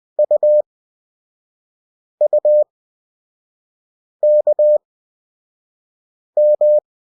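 Morse code practice tones: a steady beep keyed in dots and dashes, sending four single characters about two seconds apart, U, U, K, M, at 20 WPM character speed with long Farnsworth gaps between characters.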